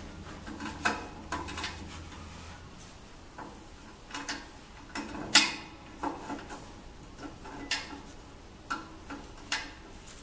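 Irregular metal clicks and knocks from hands adjusting a fitting on the print-head arm of a manual carousel screen printing press, about a dozen in all, with the loudest knock about five seconds in.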